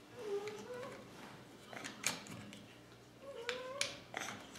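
Small clicks and taps of screws and a kydex saddle cheek rest being fitted onto a synthetic rifle stock by hand, with two short wavering squeaks, one near the start and one about three and a half seconds in.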